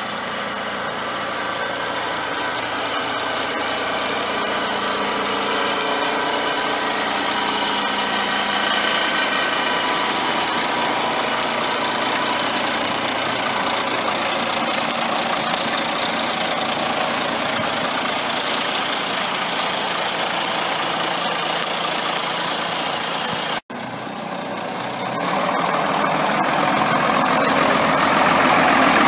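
A Sides Renault 4x4 forest fire truck's diesel engine idling steadily, growing louder as the microphone moves toward the cab. About three-quarters of the way through, the sound drops out for an instant, then comes back louder and rougher.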